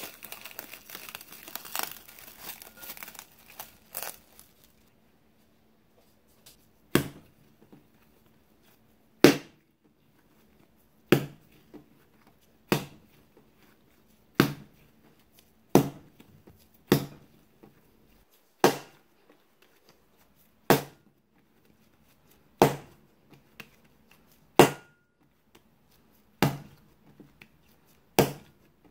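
Plastic cling film crinkling as it is pulled and stretched over a glass bowl of dough. Then, from about seven seconds in, bread dough slapped down hard on a table as it is kneaded: one sharp slap every second and a half to two seconds, about thirteen in all.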